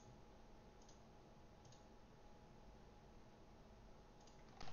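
Near silence with about four faint clicks from computer mouse and keyboard use.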